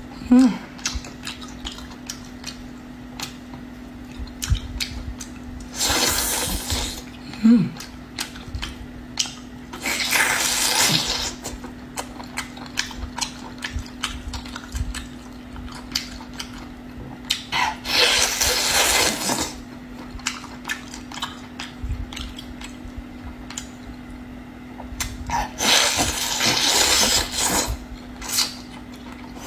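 Water rushing in four short spells of one to two seconds, with many small clicks and knocks of kitchenware being handled between them, over a steady low hum.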